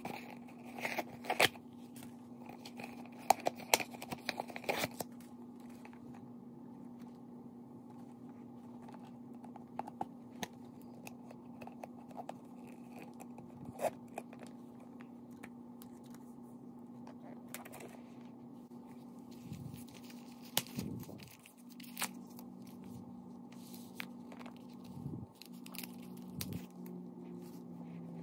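Packing paper crinkling and tearing as it is pulled out of a clear vinyl crossbody bag, with scattered clicks of zipper and metal hardware. The crinkling is densest in the first few seconds, then thins to occasional handling noises over a steady low hum.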